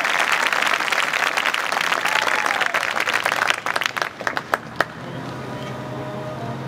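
Audience applause with a whoop or two, thinning out over about four seconds to a few last scattered claps. A faint low steady tone holds after that.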